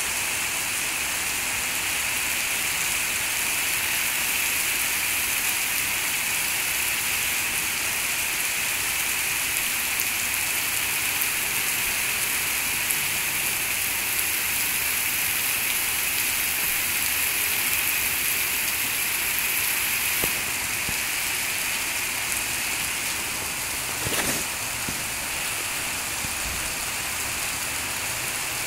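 Heavy rain falling on paving stones and asphalt, a dense, even hiss that eases slightly about two-thirds of the way through.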